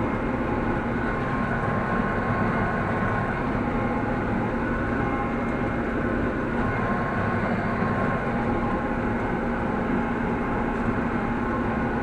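Massey Ferguson 6150 tractor running steadily under load while pulling and driving a conventional hay baler, heard from inside the cab: an even engine drone with a few constant whining tones.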